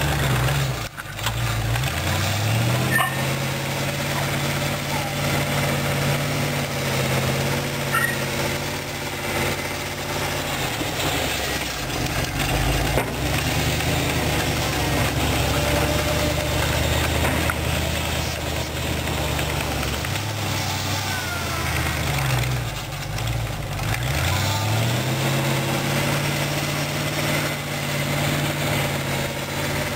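Chrysler 318 V8 engine of a homemade articulated 4x4 tractor running under load while snowplowing. Its pitch drops and climbs back up a few times as the throttle is let off and opened again.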